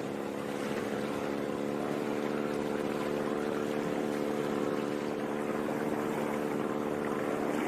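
Motorboat engine running at a steady speed, with an even, unchanging drone.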